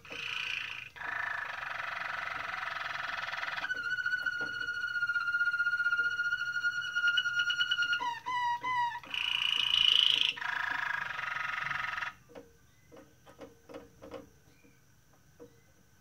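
Malinois (Waterslager) song canary singing: a dense rolling trill, then a steady whistled note held for about four seconds, a few short falling notes and a second rolling trill. The song breaks off about twelve seconds in, leaving only a few faint clicks.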